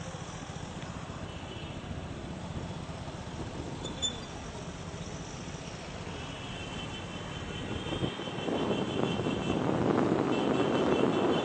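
Vehicle engine noise, steady at first and growing louder about eight seconds in, with a faint high steady whine over it.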